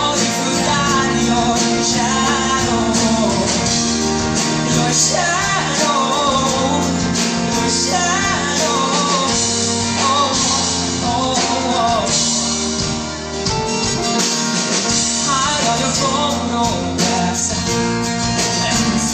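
Live pop-rock band playing, with drums, keyboard and acoustic guitar, and a singer carrying a wordless, wavering vocal line over the band.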